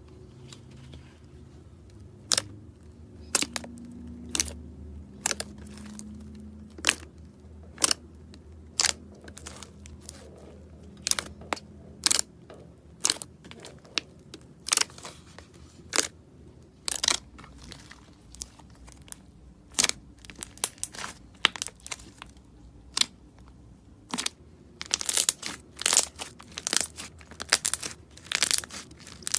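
Slime being worked by hand, giving sharp clicking pops about once a second that crowd into quick clusters near the end.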